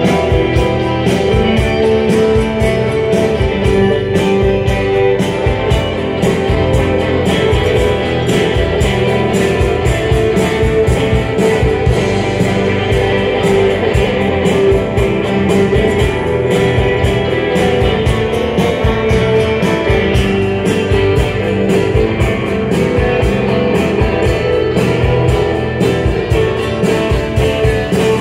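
Live rock band playing: several electric guitars over a steady drum beat, loud and continuous.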